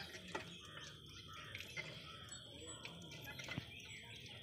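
Birds chirping faintly, a scatter of short calls, over faint distant voices.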